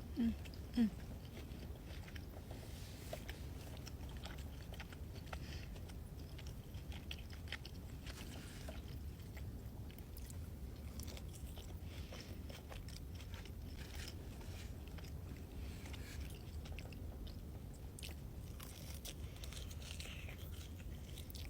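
A person chewing a bite of ribeye steak up close, with scattered soft wet mouth clicks and smacks over a steady low hum.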